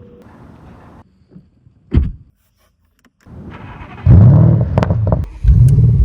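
Audi RS6 C7.5's 4.0 twin-turbo V8 with an aftermarket stainless catback exhaust starting up: a short thump about two seconds in, then the engine catches about four seconds in with a loud flare, dips briefly and runs loud again near the end.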